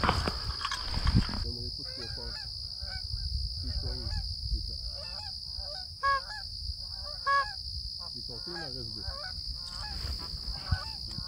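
Canada geese honking as a flock comes in overhead, a string of calls starting about a second and a half in, with two louder honks near the middle. A rustle of handling in the first second or so.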